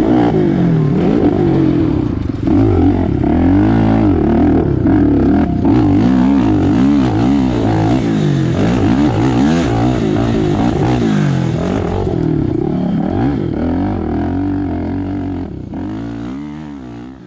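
Off-road motorcycle-type engine revving hard and easing off again and again, its pitch rising and falling about once a second as when riding a motocross track; the sound fades out near the end.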